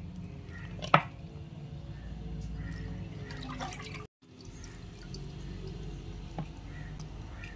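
Water dripping and splashing as pieces of goat-head meat are rinsed in a vessel, with scattered sharp clicks, the loudest a knock about a second in.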